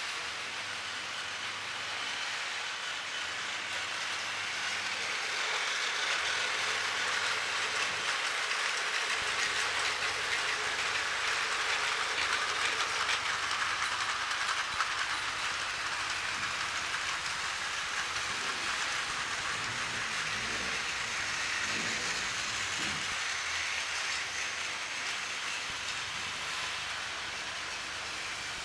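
Battery-powered Plarail toy train running along plastic track: a steady whirring rattle from its small motor and wheels. It grows louder toward the middle as the train comes close, then eases off.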